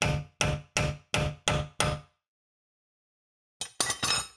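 Hammer blows on the rear axle nut of a BMW E90, bending its locking tab over to lock the nut: six quick ringing metal strikes about three a second, a pause, then a few more strikes near the end.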